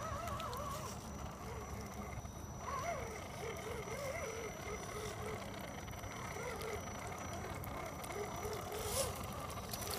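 Axial SCX10 RC scale crawler driving through wet mud: its electric motor and geared drivetrain whine, the pitch rising and falling as the throttle is worked and the tyres churn. There is a sharp click about nine seconds in.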